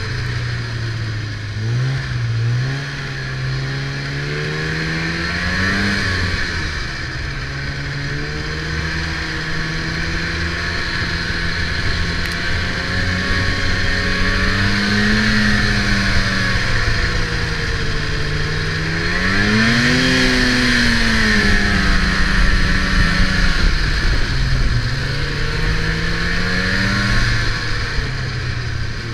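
Snowmobile engine running under way, its pitch rising and falling as the throttle is worked, climbing sharply about six seconds in and again about two-thirds of the way through. A steady hiss runs above the engine.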